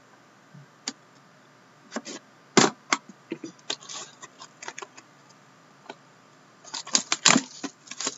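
Shrink wrap and plastic packaging on a trading-card box crinkling and crackling as it is cut open with a knife and pulled off. Irregular crackles and clicks, loudest about two and a half seconds in and in a quick run around seven seconds.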